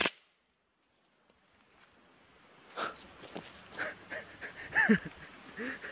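A single sharp crack, then a man's breathy, excited laughter with short gasps and a few faint clicks.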